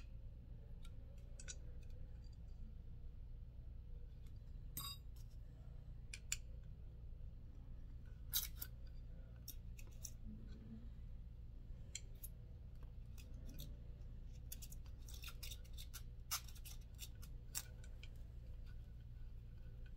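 Light scattered clicks and scrapes of small parts being handled, as a thin white stick is worked inside a small bicycle seatpost part, with a quick run of clicks in the last third. A steady low hum sits underneath.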